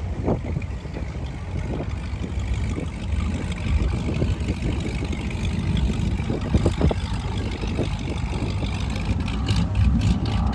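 Motorboat engine running with a steady low rumble and a rush of noise over it.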